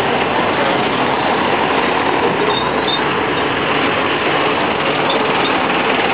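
Steady engine and road noise of a rubber-tyred tourist road train moving through city traffic, heard from its open carriage.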